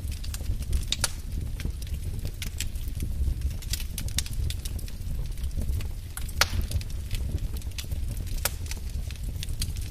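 Wood fire in a fireplace crackling, with a steady low rumble of flame under scattered sharp pops; one pop a little past halfway is louder than the rest.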